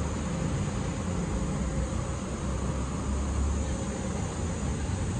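Steady outdoor street ambience: insects buzzing continuously at a high pitch over a low, constant rumble of traffic.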